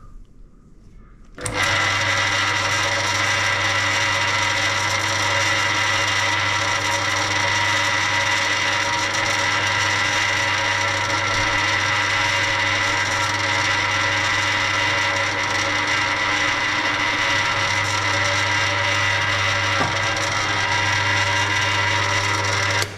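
Bench drill press switched on about a second and a half in, its motor and spindle running with a steady hum and whine while it drills a test hole into a centre-punched piece of metal; the sound cuts off abruptly at the end.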